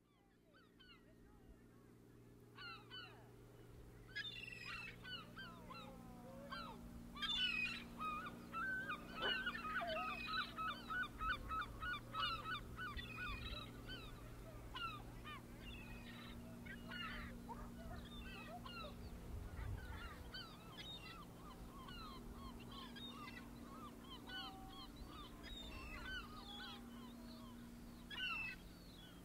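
A flock of waterbirds calling, many short calls overlapping, with a quick run of repeated notes about eight to thirteen seconds in. A steady low hum lies beneath. The sound fades in from silence at the start.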